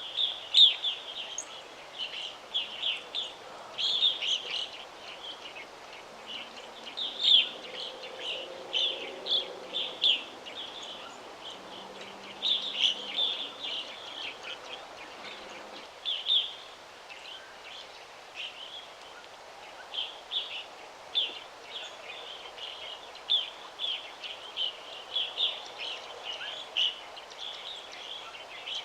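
Several small songbirds chirping and twittering: quick runs of short, high notes, some clusters louder than others, over a soft steady background hiss.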